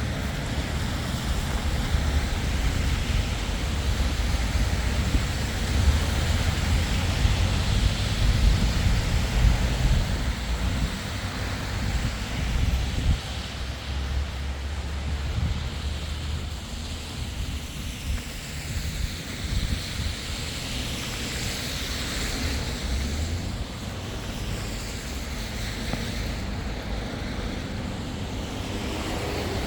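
Wind buffeting the microphone in a strong low rumble, over a steady noise of city street traffic.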